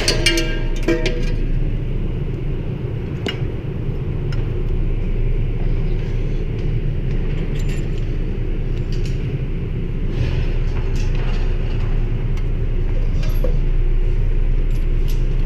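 Steady low rumble of background noise, with a faint click about three seconds in.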